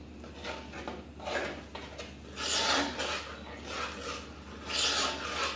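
A metal spoon stirring thick curry masala paste in a stainless steel pot, scraping against the pot in about four strokes.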